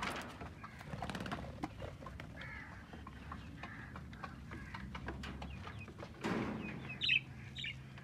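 Chicks and budgerigars chirping in small short calls, with plastic-bag rustling and light knocks as they are let into a wire cage.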